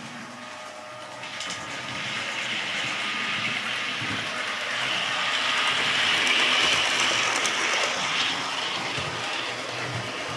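Model Class 105 DMU running on the layout's track: a rushing rattle of wheels on rail and motor that grows louder to a peak about six seconds in, then fades as it passes.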